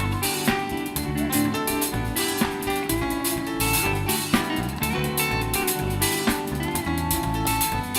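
Live band playing an instrumental passage of a worship song with no singing: guitar over a drum kit keeping a steady beat.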